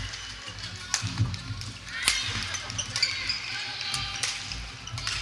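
Badminton rally on a wooden gym floor: several sharp racket hits on the shuttlecock, with short shoe squeaks, over a busy, echoing hall.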